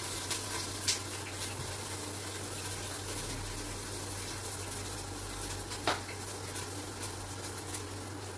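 Red palm oil heating in a pot on a high gas flame, a steady hiss with a low hum under it, and three short sharp clicks of a utensil against the counter or pot, about a third of a second, one second and six seconds in.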